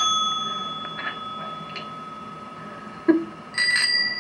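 A desk service bell struck once, ringing clearly and slowly fading. About three and a half seconds in, after a short knock, a second bell with a higher ring is struck.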